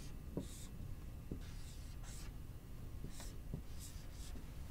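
Marker writing on a whiteboard: a string of short, faint scratchy strokes as numbers are written.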